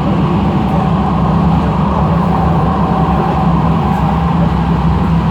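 Steady running noise of a tram in motion, heard from on board: an even, loud drone with a constant low hum.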